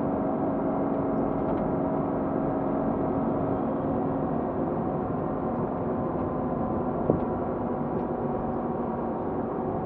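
2007 Porsche Cayman S's 3.4-litre flat-six engine running at a steady pitch, heard inside the cabin through a dash camera, with road noise beneath it. One sharp click a little after seven seconds.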